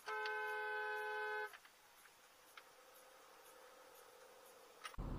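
Car horn sounded in one steady blast of about a second and a half, as a car cuts across in front. Just before the end there is a brief low road rumble.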